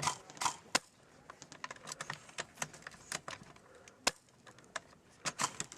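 Airsoft gunfire: scattered sharp clicking pops at irregular intervals, some near and loud, others fainter. The loudest come at the start, just under a second in, and about four seconds in.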